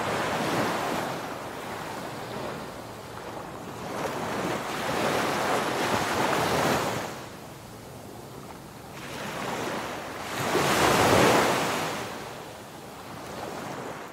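Ocean waves surging and receding in slow swells a few seconds apart, with the biggest swell about three-quarters of the way through.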